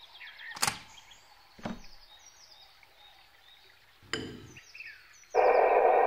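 Faint bird chirps with three sharp knocks over the first four seconds. About five seconds in, a loud steady rushing hiss of water escaping from a leaking pipe starts, filtered to a narrow middle band, as a leak sounds through a geophone's headphones.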